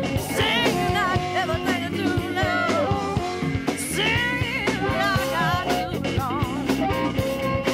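A blues-rock song with a steady drum beat under guitar and bending, wavering melody lines.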